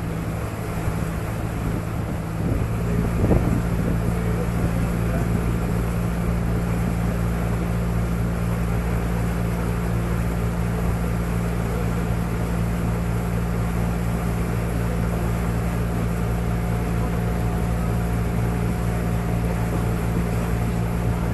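Resort boat's engine running steadily underway: a low, even drone that gets louder about two and a half seconds in, then holds steady.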